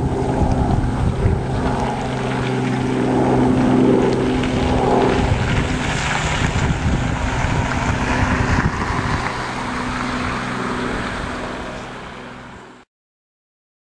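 Small Robinson helicopter flying past: a steady rotor and engine drone that is loudest about four seconds in, then slowly fades as it moves away, with wind rumbling on the microphone. The sound cuts off suddenly near the end.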